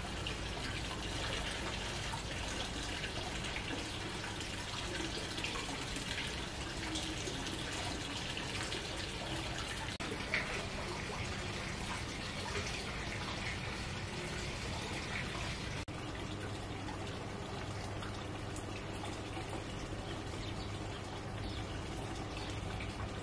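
Water trickling steadily, with a single short sharp sound about ten seconds in.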